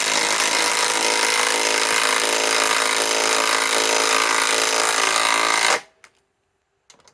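Milwaukee M18 Fuel 2854-20 compact 3/8-inch cordless impact wrench hammering continuously as it drives a 5-inch lag screw, cutting off abruptly about six seconds in.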